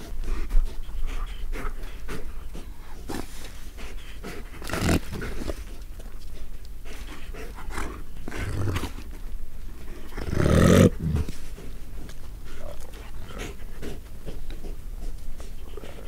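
Wolves growling and snarling in short, irregular bursts as two tussle over a kill, the loudest and deepest growl about ten seconds in.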